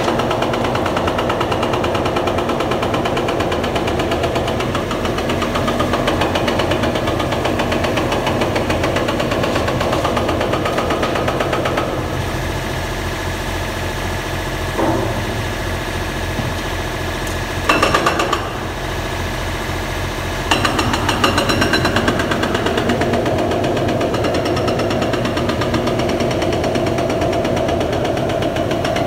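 Heavy construction machinery on bridge demolition work running steadily with a fast, rattling pulse. It eases about twelve seconds in, with two short louder bursts, then picks up again.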